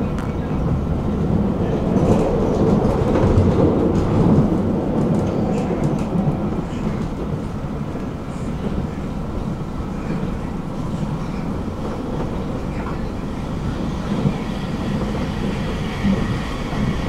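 A tram running along its track: a steady rumble of wheels on rail, with a few light clicks. It grows louder for a few seconds about two seconds in, then settles.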